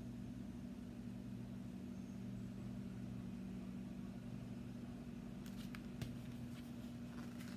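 A steady low hum throughout, with short clicks and paper rustles from a hardcover picture book being handled and swung around, starting near the end.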